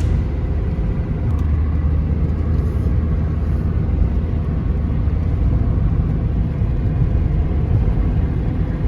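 Car driving downhill: a steady low rumble of engine and road noise heard from inside the cabin.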